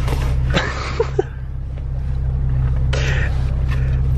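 Steady low hum of a car heard from inside the cabin, with a couple of short rustles and two quick clicks about a second in.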